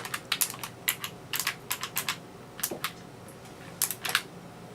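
Mechanical keys of a Tesoro Gram XS gaming keyboard being pressed, sharp clicks in irregular small clusters; this is a noisy-switch version of the keyboard.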